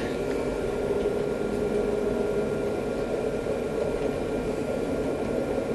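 Steady interior running noise aboard an Alstom Citadis 302 tram: an even hum and rumble with a few faint, steady whining tones. There is a brief click right at the start.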